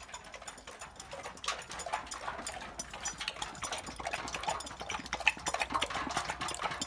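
A dog eating yogurt, lapping it up with rapid, irregular strokes of the tongue.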